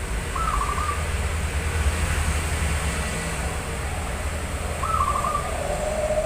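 Zebra dove giving its short, rapidly stuttering coo twice, about half a second in and again around five seconds, over a steady low rumble.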